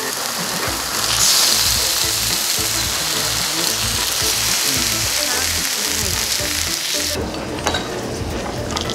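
Thin slices of beef tongue sizzling on a hot tabletop barbecue grill plate. The sizzle grows louder about a second in and cuts off suddenly about seven seconds in.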